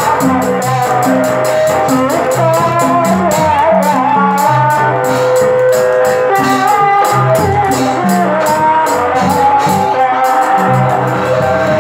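Lively music: a wavering melody over a repeating low drum pattern, with a fast, steady high percussion beat about five strokes a second.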